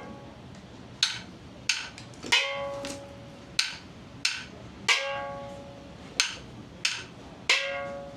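Chinese temple ritual percussion playing a repeating pattern: two short dry knocks, then a strike that rings on with a clear pitch, about every two and a half seconds, three cycles in all.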